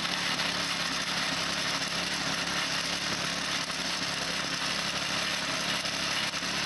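Mountfield MS 16 rotary tiller's petrol engine running steadily under load as its tines turn in the soil, hitched behind a small tractor.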